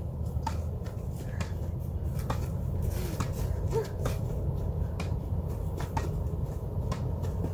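Tennis ball volleyed back and forth between two rackets, a sharp pock of ball on strings about once a second, over a low steady background rumble.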